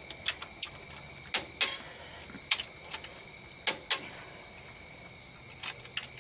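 A click-type torque wrench set to 70 ft-lb clicking sharply as it is pulled on each bolt of a Cummins ISX engine's overhead, the clicks coming mostly in close pairs about once a second. Each click signals the set torque has been reached, confirming the bolt is already tight. A faint steady high whine runs underneath.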